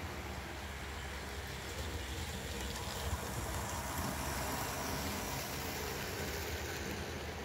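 HO scale model train, CP Rail F7 A and B diesel units hauling boxcars, rolling past on the track with a steady running noise.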